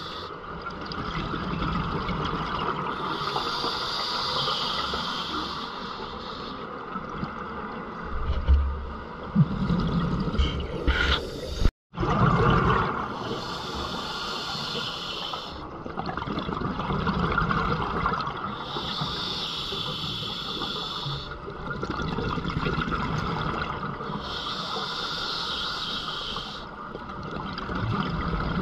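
Scuba diver breathing through a regulator underwater: a hiss with each inhalation every five to six seconds, alternating with the rumble of exhaled bubbles. The sound cuts out for a moment about twelve seconds in.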